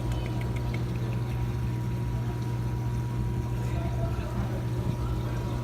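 A steady low mechanical hum, like an idling engine or motor, with a constant thin higher tone over it and a few faint ticks about half a second in.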